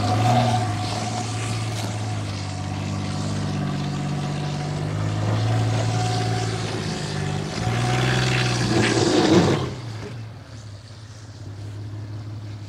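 Audi A6 C5 2.8 quattro's V6 engine pulling hard under load as the car claws up a snowy, muddy track, its wheels churning. About eight seconds in it grows louder with a rush of spinning tyres and flung snow and dirt, then the revs drop off sharply about ten seconds in.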